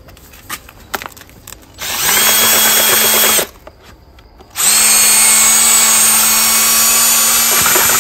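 Cordless drill with a paddle mixer stirring lime plaster and pigment in a plastic bucket. After a few light knocks it spins up about two seconds in and runs steadily for about a second and a half. It stops, then starts again a second later and keeps running.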